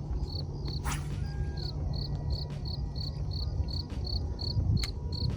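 Crickets chirping in a steady, even rhythm of about two chirps a second, over a low rumble, with a brief hiss about a second in.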